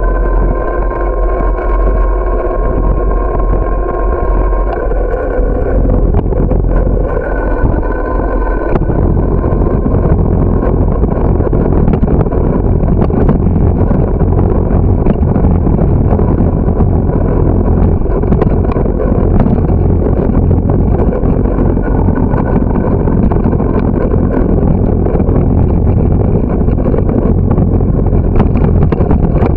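Bicycle ride noise: wind buffeting the bike-mounted microphone over tyres rumbling on asphalt. A steady pitched hum with overtones runs through the first nine seconds and then stops.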